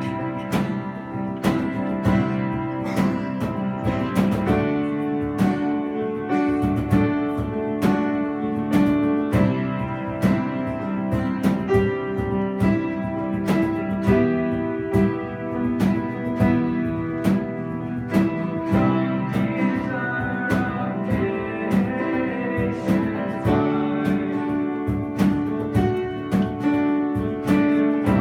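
Worship music on a strummed acoustic guitar, with held chords and a steady strumming rhythm.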